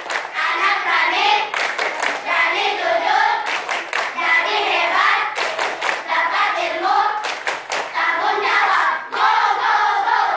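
A group of schoolchildren singing together while clapping their hands in short rhythmic bursts about every two seconds.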